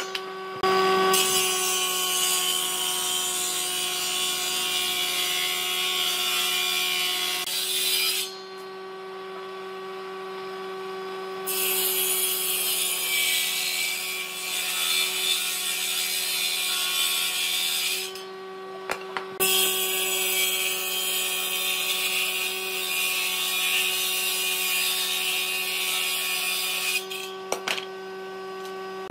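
A power tool working wood: its motor hums steadily throughout, and a loud rasping of the tool biting into the wood comes in three long passes with short breaks between.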